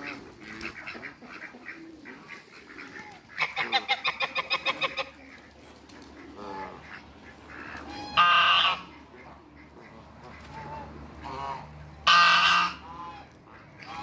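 Domestic ducks quacking: a quick run of about a dozen quacks a few seconds in, then two loud single calls about four seconds apart, the loudest sounds here.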